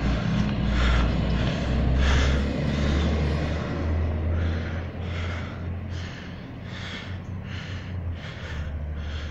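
Fast, rhythmic breathing close to the microphone, about two puffs a second, over a steady low rumble.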